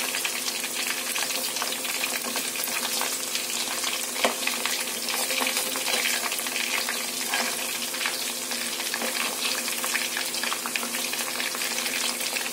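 Batter-coated chicken pieces deep-frying in hot oil, a steady crackling sizzle. A metal spoon turning the pieces adds occasional clicks against the pan.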